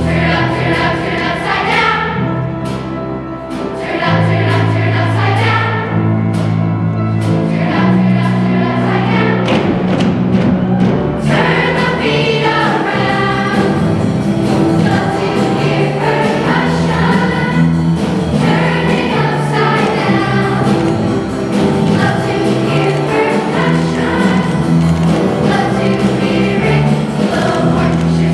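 Middle-school mixed-voice show choir singing an up-tempo number over instrumental backing with a steady beat.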